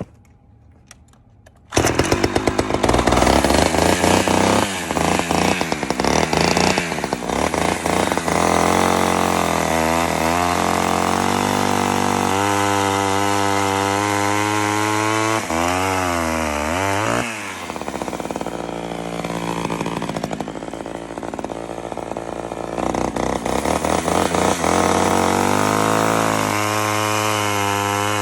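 Rebuilt Homelite Super XL two-stroke chainsaw running loud after coming in abruptly about two seconds in, its engine pitch rising and falling repeatedly as it is revved. Its carburettor is not yet fully tuned.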